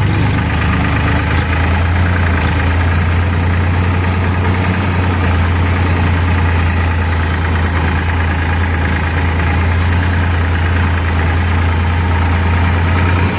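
Heavy diesel engine of a backhoe loader or farm tractor idling steadily, a loud, even low drone with no change in speed.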